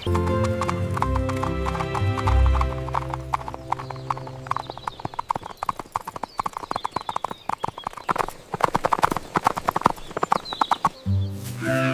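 Background music with held low notes, then from about four seconds in a fast run of clip-clop hoofbeats that goes on for several seconds. The music comes back near the end.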